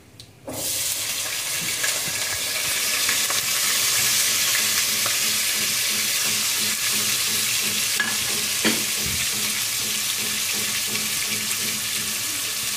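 Sliced onions dropped into hot oil in an aluminium pot: a loud sizzle starts suddenly about half a second in and carries on steadily as they fry, with the odd knock of the wooden spatula stirring them.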